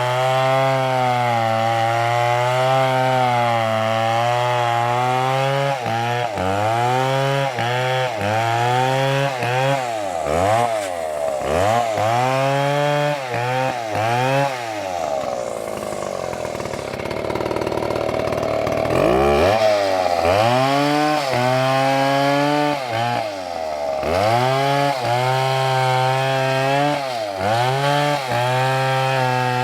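Chainsaw cutting through wood, its engine note dipping and recovering again and again as the chain loads up in the cut. About halfway through, the engine bogs down low for a few seconds, then revs back up and carries on cutting.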